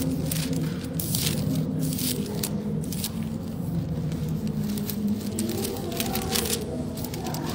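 Rustling and crackling close to a clip-on microphone, over a steady low hum.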